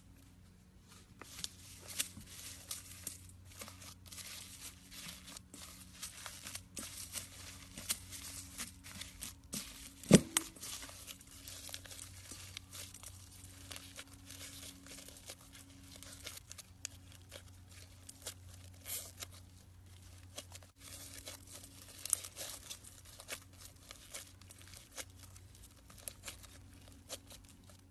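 Slime being kneaded into small foam beads, making a dense, continuous run of small crinkly crackles and pops. One sharper, louder knock comes about ten seconds in.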